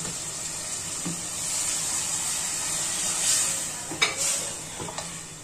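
Mutton and onion-tomato masala sizzling in a pressure cooker over a gas flame while it is stirred with a wooden spoon. The sizzle swells as a glass of water is poured onto the hot masala, and the spoon knocks against the pot a couple of times near the end.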